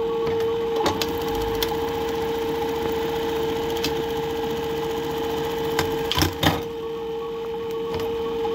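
Juki LBH-761 industrial buttonhole machine sewing a buttonhole: a steady motor hum under rapid stitching with scattered sharp clicks, then two loud clunks about six seconds in.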